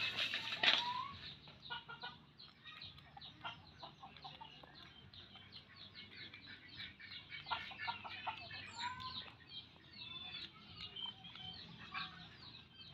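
Birds clucking and chirping in many quick high calls, several a second.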